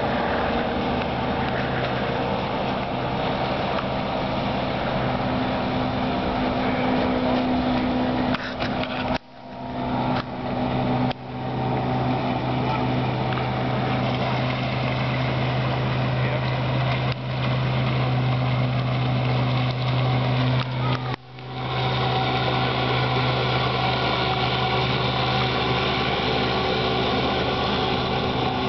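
1959 Evinrude 5.5 hp two-stroke outboard motor running steadily at speed on a small aluminium boat. The sound drops out briefly a few times.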